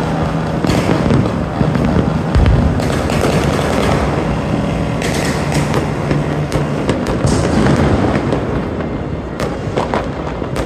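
New Year fireworks and firecrackers going off all over a city at once: a dense, continuous crackle of bangs and pops, with one heavy boom about two and a half seconds in.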